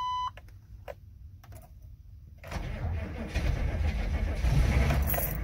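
Chevrolet Express's 6.5-litre turbodiesel V8 being started once the glow plugs' wait-to-start period is over. A steady chime tone stops just after the start and a few faint clicks follow. About two and a half seconds in the engine turns over, catches and settles into a diesel idle.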